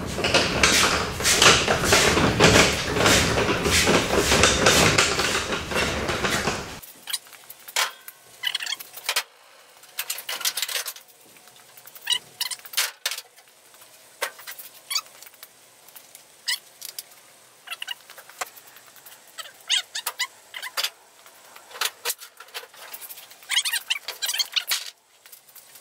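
Loose metal car parts being rummaged through and lifted out of a car's trunk: a loud, dense clatter and scrape for about the first seven seconds, then scattered light clinks and knocks of metal pieces being handled.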